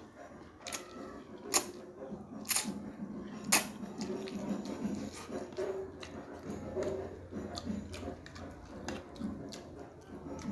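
Close-miked chewing of a mouthful of fried instant noodles, with wet mouth clicks throughout and three loud sharp smacks about a second apart in the first few seconds.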